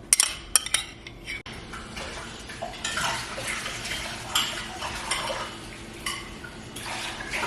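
Utensils and dishes clinking and clattering, with a few sharp clinks in the first second and a busier stretch of scraping and clattering in the second half.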